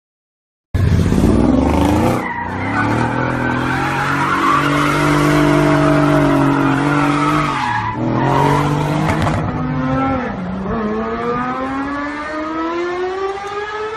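Car engine revving hard while its rear tyres spin in a burnout, tyre squeal running over the held high engine note. Near the end the engine pitch climbs steadily as a car accelerates.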